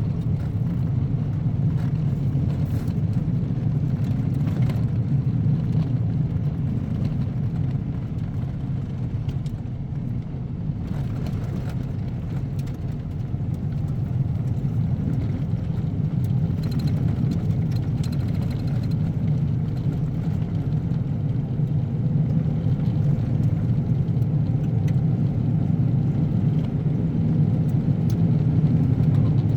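A vehicle driving along a road, with a steady low engine and tyre rumble that holds even throughout.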